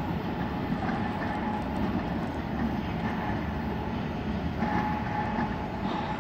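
Norfolk Southern intermodal freight train rolling away down the line, a steady rumble of its wheels on the rails. A thin, steady high tone joins in about four and a half seconds in.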